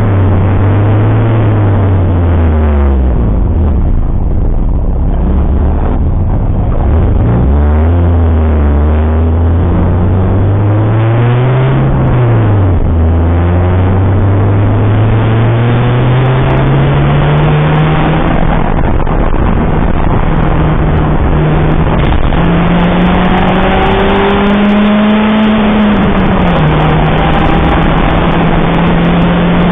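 Citroën Saxo VTR's 1.6-litre four-cylinder engine pulling hard on track. Its pitch climbs slowly, then drops sharply at an upshift, and this happens twice. A steady rush of wind and road noise runs underneath.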